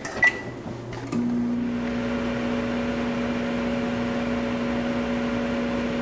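Over-the-range microwave oven started from its keypad: a short beep, then about a second in it starts running with a steady hum and fan noise. Its turntable turns again, a sign that the replacement control board works.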